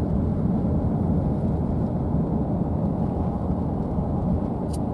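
Steady low rumble of road and engine noise inside a moving car, with one faint click near the end.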